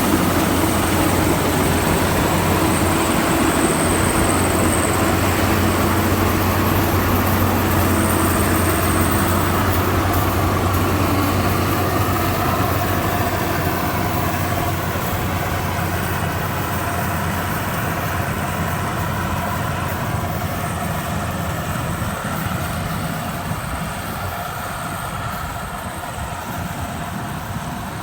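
Combine harvester engine running with a steady low drone, gradually fading over the second half.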